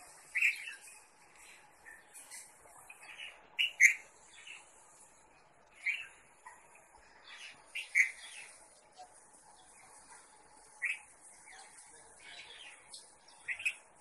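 A bulbul giving short, sharp chirping calls, singly and in quick pairs, every second or two, over a steady high-pitched hiss.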